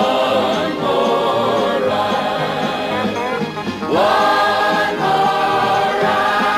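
Men and women singing together as a chorus, holding long notes with vibrato, with steady low notes underneath. About four seconds in, the voices swoop up into a new held chord.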